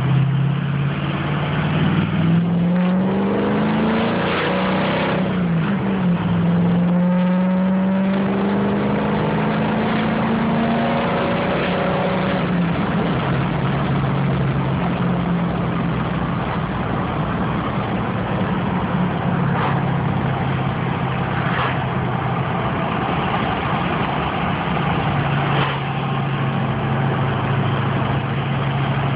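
Ford 6.0 Power Stroke V8 turbodiesel with a straight-piped exhaust, heard from inside the cab as the truck accelerates. The engine's pitch climbs twice, dropping once in between, then settles into a steady drone at cruising speed.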